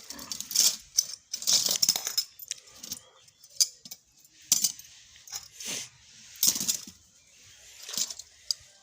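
Steel 9 cm jaw-type rat trap being handled: a series of separate metal clinks, clanks and rattles.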